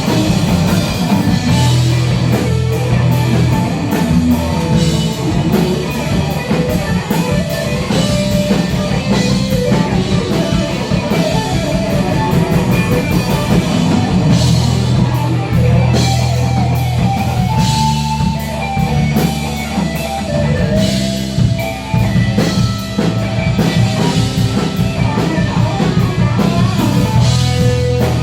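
A rock band playing live with drum kit, guitars and bass, with no singing.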